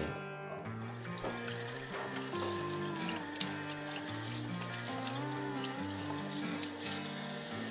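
Kitchen faucet running onto a grass carp fillet and hands as the fish is rinsed in a sink, starting under a second in. Background music plays underneath.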